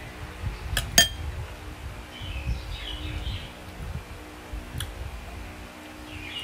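Spoon clinking against a ceramic bowl while eating: two sharp ringing clinks about a second in, and one more near five seconds.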